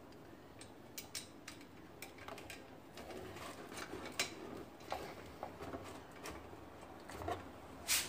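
Scattered small clicks and rubbing from the metal and plastic parts of a ceiling fan being handled while a screw and nut are fitted at a blade mount. A sharper knock comes near the end.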